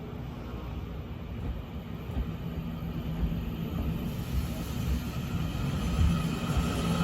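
EMU900 electric multiple unit train running, a low rumble growing steadily louder, with a steady hum. Higher whining tones come in over the last couple of seconds.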